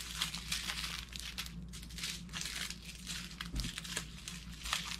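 Small plastic zip bags of diamond-painting drills crinkling and rustling as they are handled and sorted, with one soft knock about three and a half seconds in.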